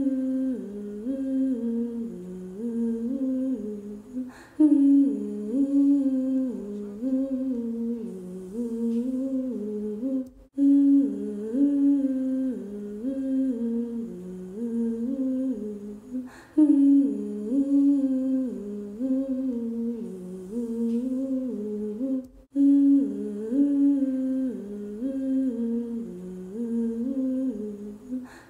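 A single voice humming a short wordless melody as soundtrack music, the same six-second phrase looping over and over, with a faint click at each restart.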